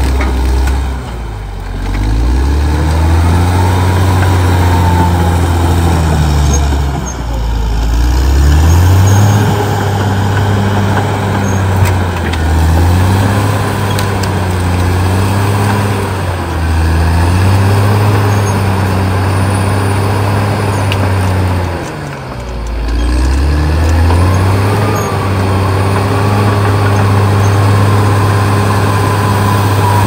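Caterpillar D6R XL bulldozer's diesel engine working under load, its pitch rising and falling several times as it revs up and eases off. A high whine rises and falls with the engine.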